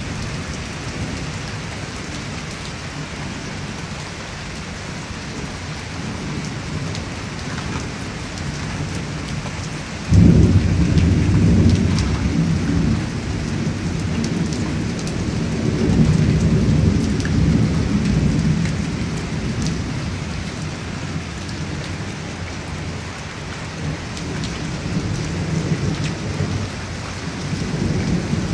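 Steady heavy rain, then about ten seconds in a sudden loud crack of thunder that rolls on as a deep rumble, swelling again a few seconds later before slowly fading back under the rain.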